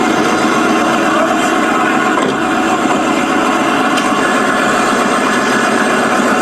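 Steady vehicle engine and road noise.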